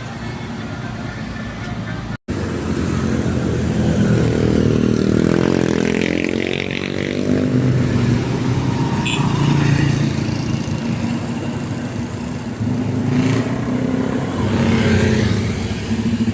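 Road vehicle engine running close by, its pitch bending up and down about five to seven seconds in as it passes, after a sudden cut about two seconds in.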